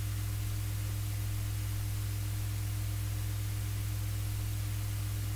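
Steady low electrical hum with even hiss, unchanging throughout: the recording's mains-hum noise floor.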